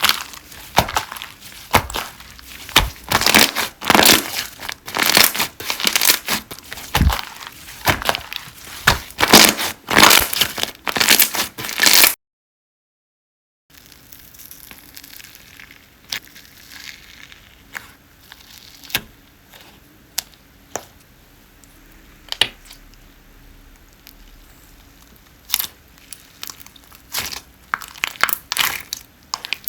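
Slime being squeezed and poked by hand, giving dense rapid clicks and wet pops. A second or so of dead silence about twelve seconds in, then scattered quieter pops that turn busy again near the end.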